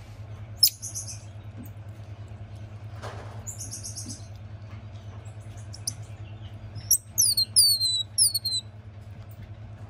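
A tamarin giving high-pitched calls: a short buzzy call about half a second in and another around three and a half seconds, then a quick run of sharp, falling chirps near the end. A steady low hum runs underneath.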